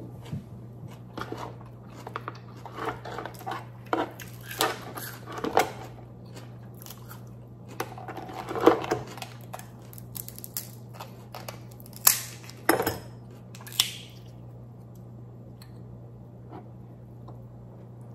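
Dungeness crab leg shell being cracked with a metal crab cracker: a run of sharp cracks and clicks with a few louder snaps, the loudest about halfway through and a cluster about two-thirds in. After that it goes quiet under a low steady hum.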